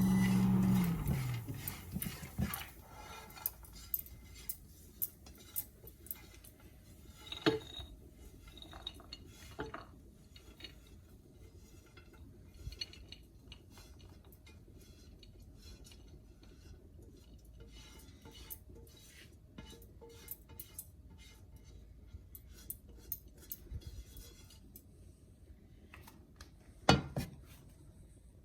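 Light clinks and scrapes of a spoon against a pan and dish as toasted almonds and pistachios are moved out, with scattered clicks and one louder knock near the end. A low steady hum stops about a second in.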